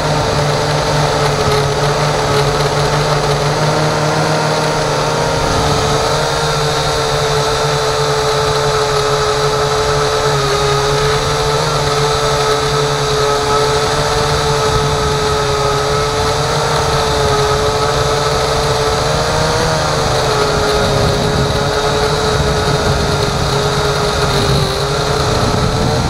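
Motor and propeller of a small drone, recorded by its own onboard camera: a steady high whine that shifts a little in pitch now and then, with wind and airflow noise underneath.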